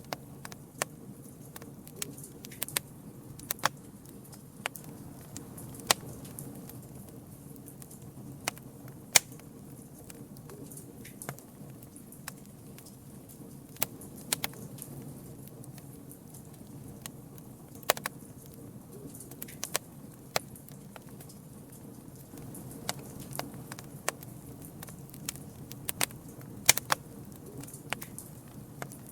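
Campfire burning: a steady low rumble of flame with irregular sharp crackles and pops, several a second at times.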